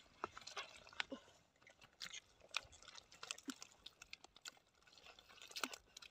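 Gloved hands digging and scooping damp clay mud: scattered small squelches and clicks, a few louder ones about a second in, around two seconds in and near the end.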